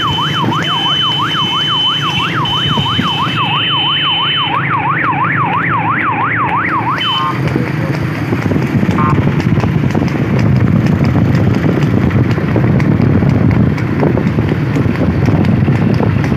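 Electronic siren sounding in a fast yelp, rising and falling about three times a second over a steady high tone, then cutting off about seven seconds in. After it comes a loud rushing noise with faint quick ticks.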